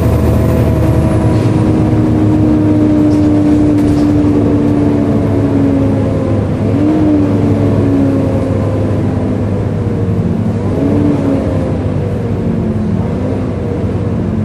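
Volvo B7LA bus's diesel engine running with its loud cooling fan whirring like a hoover. The whine slowly falls in pitch, with two brief wavers about seven and eleven seconds in.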